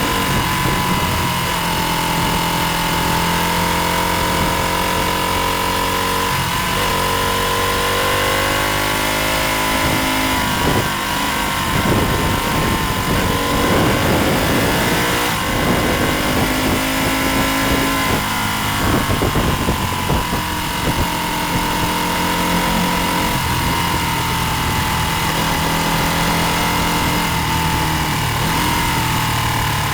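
Vintage-class road-racing motorcycle engine running hard at speed, its pitch climbing and dropping with throttle and gear changes, over steady wind rush.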